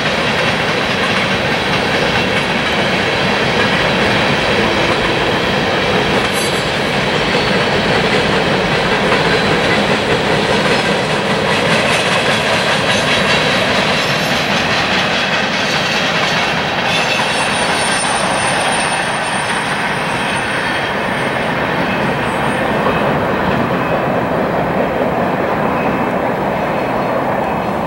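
Freight train cars rolling past close by, steel wheels clacking and rumbling over the rails, with a thin high wheel squeal around the middle. The high end of the sound thins out near the end as the last cars go by.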